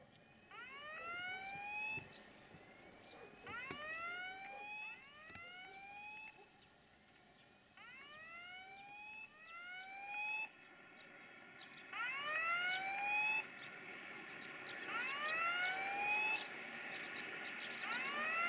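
Electronic level-crossing warning sounder repeating a rising whoop tone every second or so, the tones often overlapping in pairs and growing louder toward the end: the crossing is active, warning of an approaching train.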